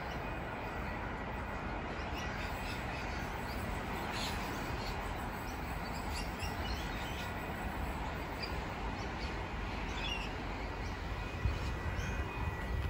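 Outdoor background noise with a few short bird calls scattered through it, and some low bumps near the end.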